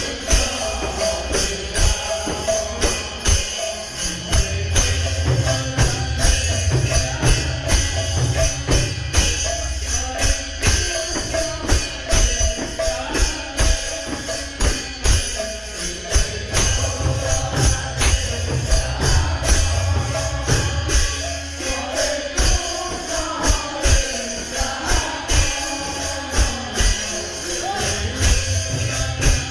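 Kirtan devotional music: a steady beat of jingling metal percussion over a low drum.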